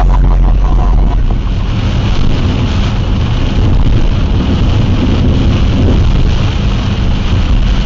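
Car driving on a wet road in rain and strong wind, heard from a dashcam inside the car: a loud, steady low rumble of wind buffeting the microphone, with tyre spray hiss.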